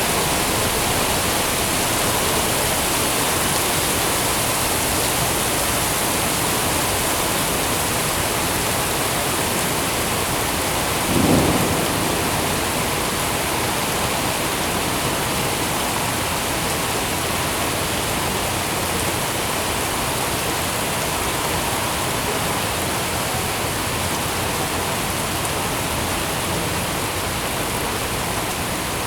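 Steady, even rain falling. About eleven seconds in there is one brief, louder low thump.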